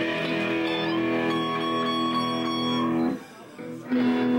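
Electric guitar played through an amplifier between songs: one chord held steady for about three seconds, a brief gap, then a new chord struck near the end.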